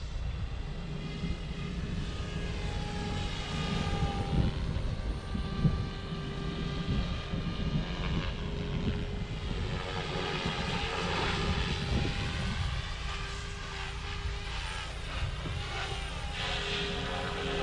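OMPHOBBY M4 Max electric RC helicopter in flight: rotor blade whir and motor whine that rise and fall in pitch as it manoeuvres.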